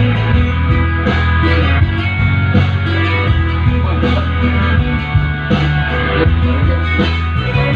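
Pop-rock band playing an instrumental passage led by guitar, over steady bass and drums.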